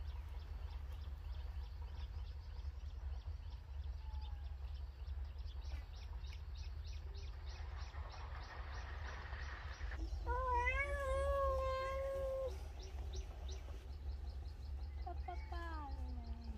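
An animal's long, drawn-out call about ten seconds in, held and wavering for about two seconds, then a shorter call falling in pitch near the end. Under it run a steady low rumble and rapid high ticking.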